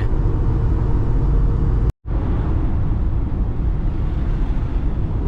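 Cabin noise of a loaded Peugeot Partner van on the move: steady low rumble from its 1.4 petrol engine and tyres, with wind through an open window. The sound cuts out for an instant about two seconds in.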